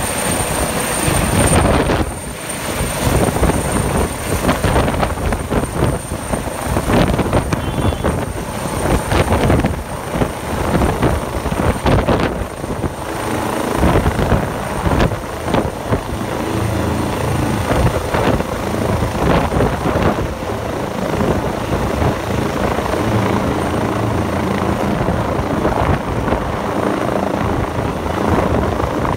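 Eurocopter EC135 helicopter taking off and moving away: loud, steady rotor and turbine noise with a high turbine whine that is strongest in the first couple of seconds.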